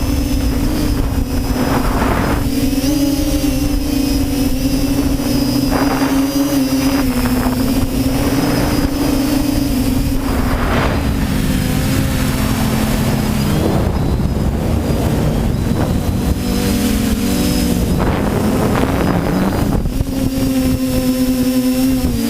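TBS Discovery quadcopter's electric motors and propellers whining steadily in flight, the pitch dipping and rising a few times as the throttle changes, with gusts of wind rushing over the onboard camera microphone every few seconds.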